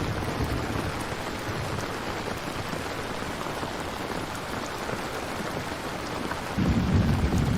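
Steady rain falling, an even hiss. Near the end a low rumble of thunder comes in and grows louder.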